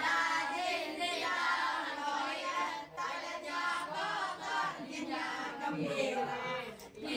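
A group of children singing together, voices only.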